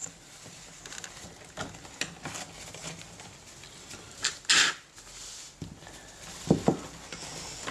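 Hands cleaning mixing-console parts with a paper tissue: small plastic clicks and tissue rustling, a brief louder rustle about halfway, and two quick knocks a little before the end.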